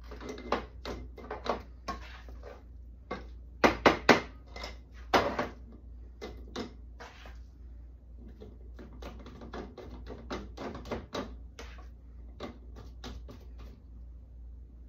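A spoon scraping and tapping against a skillet, a canning funnel and glass jars as cooked ground meat is spooned into wide-mouth canning jars: a string of short clicks and knocks, loudest in a quick cluster of three about four seconds in and another just after.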